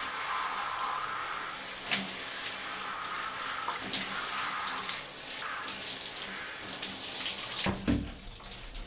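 Shower water running steadily from a handheld shower head, with a few brief splashes.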